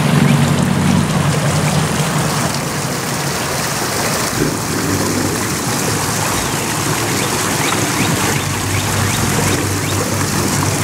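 A steady rushing noise with no clear pitch or rhythm, as loud as the talk around it.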